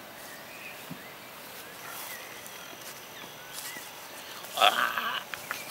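Quiet outdoor background with a few faint high chirps, then a short loud burst of a person's voice near the end.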